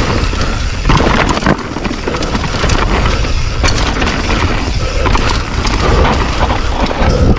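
Orange Stage 6 mountain bike descending a rough trail at speed: heavy wind buffeting on the microphone, with frequent sharp knocks and rattles as the bike takes the bumps.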